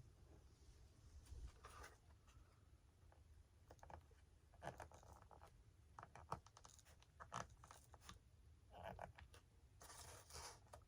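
Faint, scattered scratches and small clicks from hands and a tool working on the foam wing of an RC model plane, picking leftover foam out of the wiring channel.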